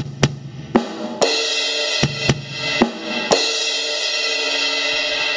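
Drum and cymbal hits, about seven sharp strikes in the first three and a half seconds, the last one left ringing in a sustained cymbal wash.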